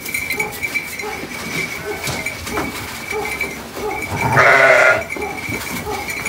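A sheep bleats once, a short call about four and a half seconds in.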